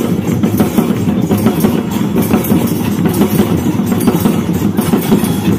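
Drums playing continuously, a dense run of loud beats.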